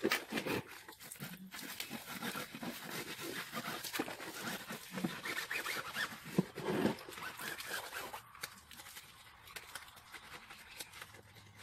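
Hand scrubbing of a wet, soapy car tyre and alloy wheel: quick, scratchy rubbing strokes that ease off after about eight seconds.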